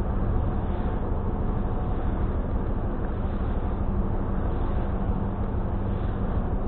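Steady low engine drone with a constant hum through it, heard from inside a car on a ferry's car deck, with no change in level.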